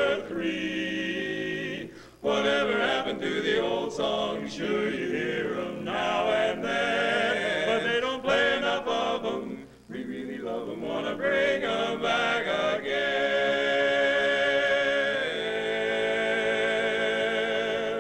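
Male barbershop quartet singing a cappella in four-part close harmony (tenor, lead, baritone, bass), with a few short breaks between phrases and a long held chord near the end.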